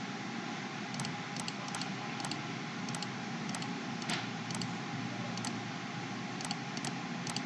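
Computer mouse clicking, sharp single clicks at an uneven pace of about two a second, over a steady background hiss.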